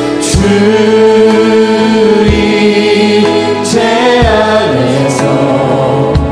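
Worship band playing a slow song: several singers singing together over drums, bass, electric guitar and keyboards. Bass drum hits fall about every two seconds, with a few cymbal crashes.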